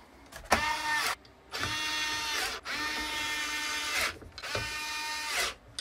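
Electric screwdriver driving screws: four short runs of a whining motor, each about a second long, spinning up and winding down.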